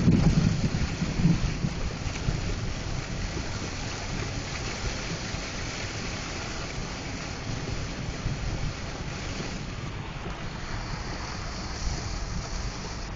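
Heavy wind-driven rain lashing a car in a thunderstorm, heard from inside the car: a steady rushing noise, with a loud low rumble in the first second or so.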